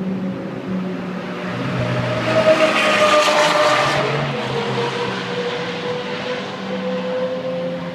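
A car passing at track speed: its engine comes on loud about three seconds in, with the pitch dropping as it goes by, then fades to a steady, quieter engine drone.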